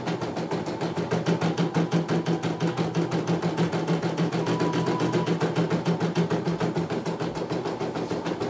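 CNY E900 portable computerized embroidery machine stitching a design: a rapid, even needle clatter of about ten stitches a second over a steady motor hum.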